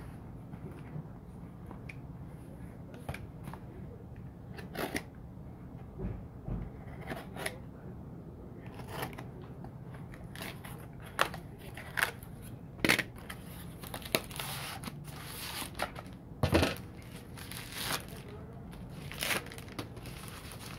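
Utility knife slicing packing tape and a cardboard box being torn open, then plastic air-cushion packaging being handled: a series of irregular scrapes, rips and crinkles, the loudest in the second half.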